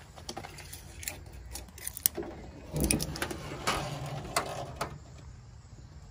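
Scattered light clicks and knocks, busiest and loudest from about three to five seconds in, as from handling a handheld phone camera while moving around the car.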